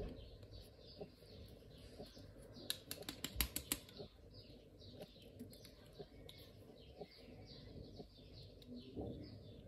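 A bird chirping over and over in short, high, falling notes. A quick run of sharp clicks about three seconds in comes from the bike light's battery pack and plastic parts being handled.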